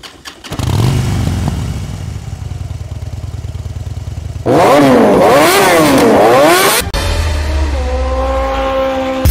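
Bajaj Pulsar RS200 motorcycle engine starting and running at idle. About four seconds in it is revved hard several times, its pitch rising and falling with each blip, and near the end it settles into a steady, higher-pitched drone.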